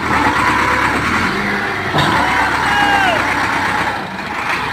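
Tractor diesel engine running hard, labouring to pull a sugarcane-laden trolley stuck in mud, with voices calling out in a couple of drawn-out shouts over it.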